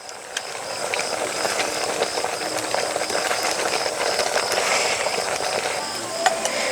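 Malai (thickened milk) with gulab jamuns boiling in a pan on the stove: a steady bubbling hiss full of small pops and clicks.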